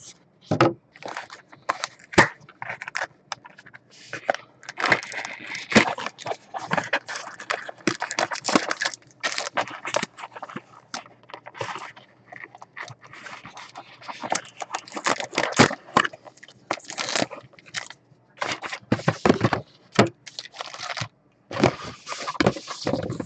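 Foil-wrapped trading-card packs and cards being handled: irregular crinkling and scraping with many small clicks and taps.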